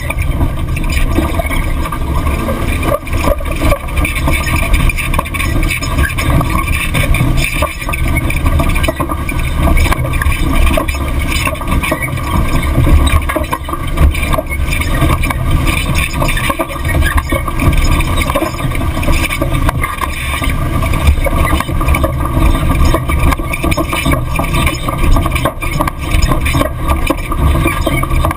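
Long-travel 2011 Chevrolet Silverado driving fast over a dirt track, heard from a camera mounted low beside the front wheel: a steady, loud rumble of wind and tyre-on-dirt road noise with the engine running underneath.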